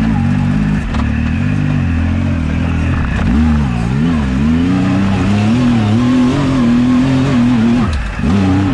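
Turbocharged Yamaha YXZ1000R three-cylinder engine driving under throttle, heard from the cockpit, its revs rising and falling repeatedly as the throttle is worked, then dropping sharply near the end and picking up again.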